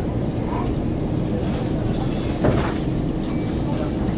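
Keihan Main Line electric train standing at a station, heard from the cab: a steady hum over background noise. A short knock comes about two and a half seconds in, followed by brief high-pitched beeps.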